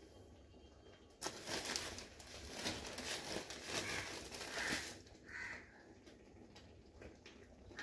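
Granulated sugar pouring from a steel cup into a pan of cooking pineapple pulp: a dense hiss of falling grains that starts about a second in and dies away about five seconds in. A bird calls several times in short notes.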